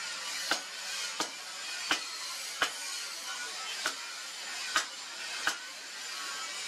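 Hand hammer striking a red-hot steel spear blade on an anvil while the blade is drawn out, seven ringing blows mostly about 0.7 s apart, over a steady background hiss.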